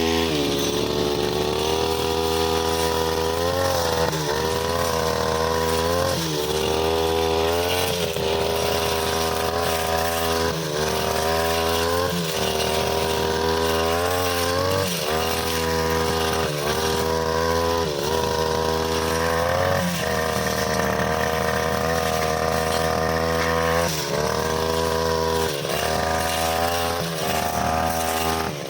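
OGAWA brushcutter's small engine running at high speed, its pitch dipping and recovering every one to two seconds as the blade bites into long, overgrown grass.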